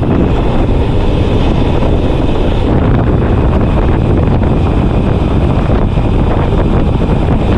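Loud, steady wind buffeting the microphone from the speed of a road bike on a fast downhill descent.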